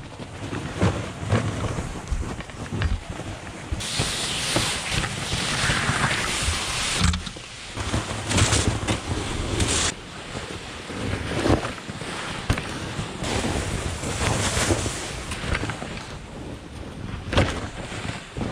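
Dogsled runners hissing and scraping over drifted, crusted snow, with wind buffeting the microphone and irregular bumps and knocks as the sled rides over the drifts. The rush swells louder for a few seconds about four seconds in.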